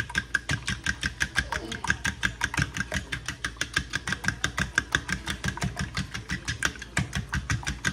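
Fork whisking raw eggs in a bowl, its tines clicking against the side in a fast, even rhythm of about seven strokes a second.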